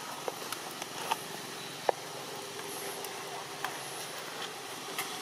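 Steady outdoor background hiss with a faint hum, broken by a few short sharp clicks, the loudest about two seconds in.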